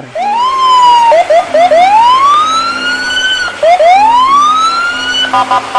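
Police siren wailing in repeated rising sweeps that climb and cut off at the top, with short quick yelps between them. Near the end it switches to a rapid pulsing beep.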